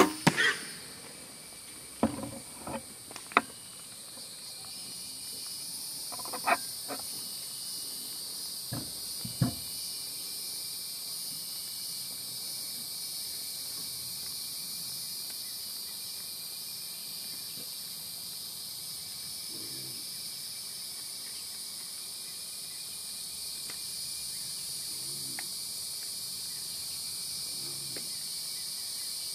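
Steady chorus of insects buzzing in several high bands. A sharp knock comes right at the start, and a handful of shorter knocks and thuds follow over the next ten seconds or so.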